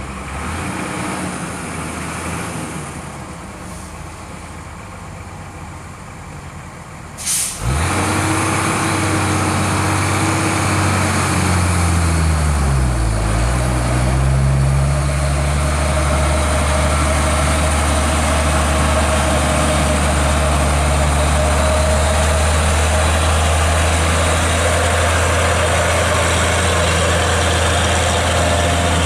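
Heavy truck's diesel engine and air system: a short loud air hiss about seven seconds in, then the engine note rises and settles into a steady loud run for the rest.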